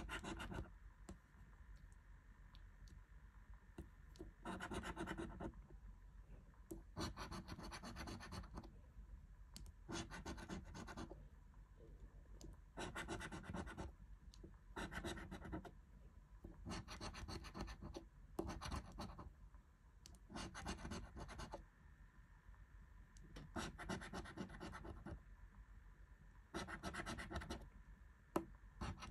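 A coin scraping the latex coating off a paper scratch-off lottery card, in repeated scratchy strokes a second or so long with short pauses between them.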